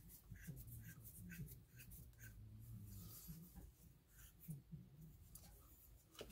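Near silence, with faint scattered clicks and scrapes of an Allen key turning a small set screw in a laser-cut metal indexing plate as the plate is handled.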